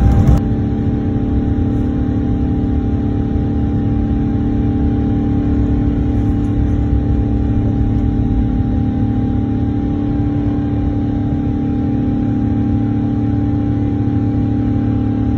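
Jet airliner heard from inside the cabin during the climb after takeoff: a steady engine drone and airflow rush with a constant low hum. A louder, rougher rumble cuts off about half a second in.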